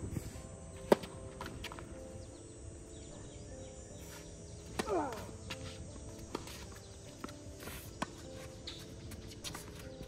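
A tennis racket strikes the ball hard on a serve about a second in. Fainter ball bounces, racket hits and footsteps on the hard court follow, with another clear hit about eight seconds in.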